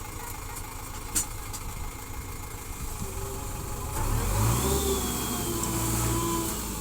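JCB 4DX backhoe loader's diesel engine running low, then revving up about four seconds in and holding the higher speed as the machine works. A sharp click about a second in.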